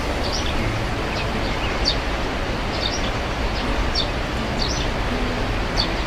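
Steady rushing of a waterfall, with birds giving short high chirps about once a second over it.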